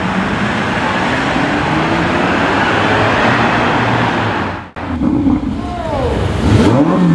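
A front-engined Ferrari V12 coupe pulls away through the gears, its engine note rising, over street traffic noise. After a sudden cut, an engine is revved, its pitch falling and rising again.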